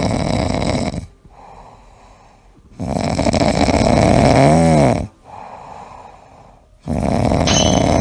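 A sleeping pet snoring loudly: three long, rough snores of about two seconds each, with quieter breaths between them. The middle snore carries a whistling wheeze that dips and rises in pitch.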